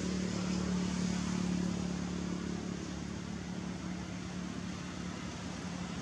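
Steady hum of an engine running, with an even hiss behind it.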